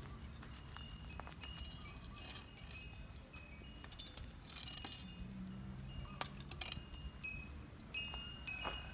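Faint high metallic chime tones ringing at irregular moments, repeating at the same few pitches, with a few light taps among them.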